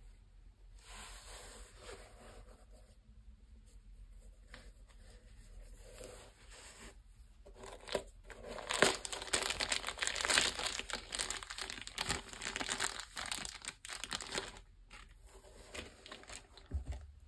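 Crinkling of a small clear plastic bag holding spare laces as gloved hands handle it at the sneaker, a dense crackle starting about halfway in and fading near the end, after a stretch of faint rubbing of the shoe.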